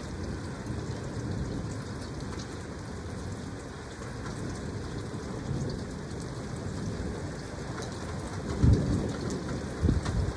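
Thunderstorm: steady rain falling with low rumbling thunder. Two short, loud low booms come near the end.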